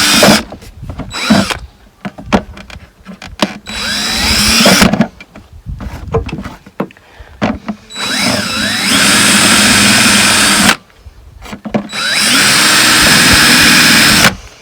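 Power drill run in bursts of one to three seconds: a run already going ends just after the start, and three more follow, each whining up in pitch as it spins up. Clicks and knocks fill the gaps between runs.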